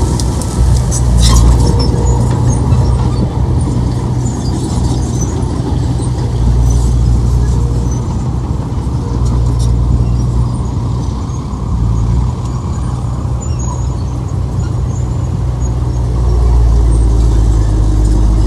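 Heavy earthmoving machinery's diesel engine running steadily under load, easing off about two-thirds through and picking up again near the end, with light metallic clinks.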